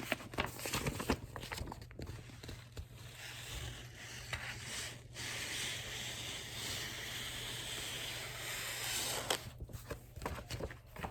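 Handling noise from a picture book: rustling and scraping of the paper as it is moved and its pages turned, with a steady rubbing hiss in the middle.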